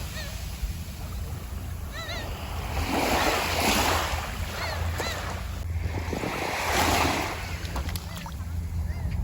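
Sea waves washing in on the shore, a steady rush that swells into louder surges about three and seven seconds in.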